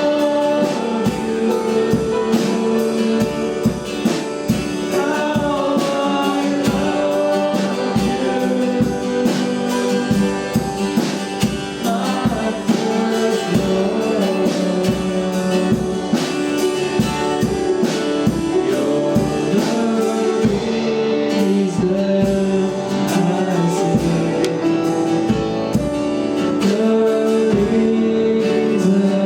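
Church worship song: singing over instrumental accompaniment with a steady beat.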